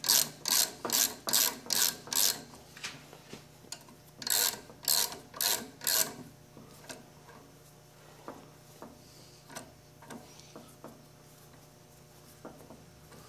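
Hand ratchet clicking in quick strokes, about two a second, as it turns the forcing screw of a three-jaw gear puller drawing a seized cast iron saw arbor housing off its shaft. Two runs of strokes with a pause between, then only faint ticks after about six seconds.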